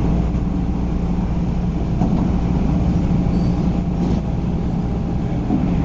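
MTR East Rail Line MLR electric train, a Metro-Cammell set, running along the line with a steady low rumble and hum.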